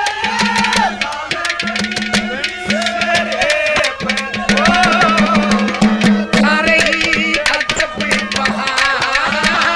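Haryanvi ragni music: rapid hand-drum strokes under a melody of sliding notes.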